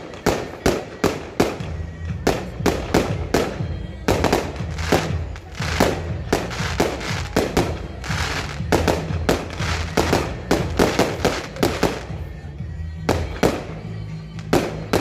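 Aerial fireworks shells bursting in quick succession, several sharp bangs a second, thinning briefly about twelve seconds in. Music plays underneath.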